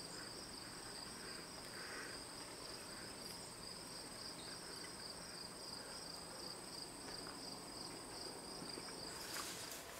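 Faint, steady trilling of insects: two continuous high trills, the lower one pulsing slightly. Both cut off about nine seconds in.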